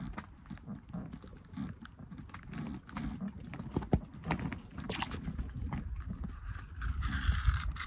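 Wind rumbling on the microphone, with scattered clicks and knocks from handling a freshly caught zander while unhooking it over the side of an inflatable boat. A louder rushing gust near the end.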